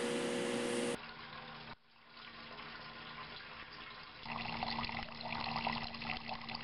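Thin streams of water from a Kelvin water dropper falling into galvanized metal buckets, a steady splashing trickle that grows louder about four seconds in. A steady low hum fills the first second, then cuts off.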